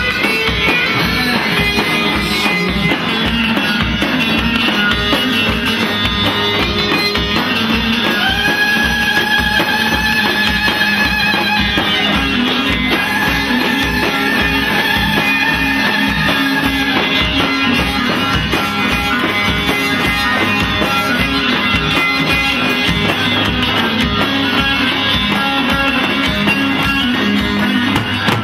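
Turkish folk dance music played live on bağlama (saz) and davul: a plucked long-neck lute melody over a steady beat of the double-headed bass drum. About eight seconds in, and again about thirteen seconds in, a long wavering held note sounds over the playing.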